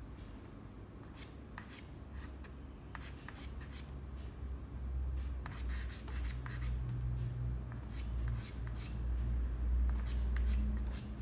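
Soft pastel stick scratching and rubbing on paper in short, repeated strokes. About halfway through, a low hum grows under the strokes and becomes the loudest sound.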